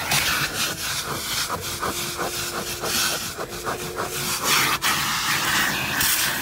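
Vacuum cleaner running with its hose nozzle rubbing over car floor carpet, with a run of quick scraping strokes in the middle.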